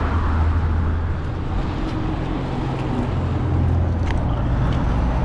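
Steady rumble of passing road traffic, with a vehicle engine's low hum that shifts in pitch.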